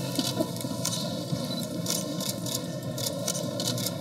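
Camera shutters clicking irregularly, several times a second, over the steady hubbub of a crowded exhibition hall.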